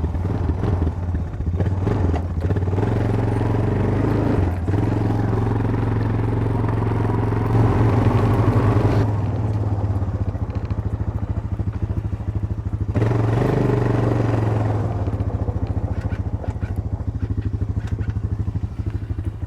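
Engine running steadily after starting up, its sound swelling around eight seconds in and again around thirteen seconds in.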